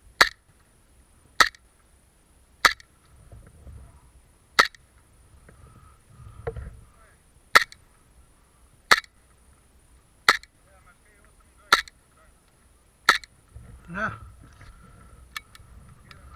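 Airsoft gun firing single shots, each a sharp crack, about nine of them at uneven gaps of one to three seconds.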